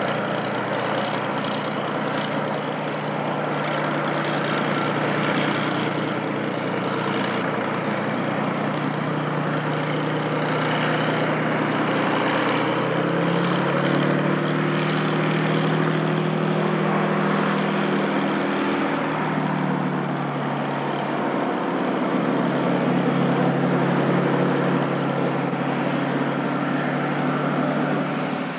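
Beech F33A Bonanza's six-cylinder piston engine and propeller running steadily. Its pitch rises about twelve seconds in, holds for several seconds, then drops back around twenty seconds in.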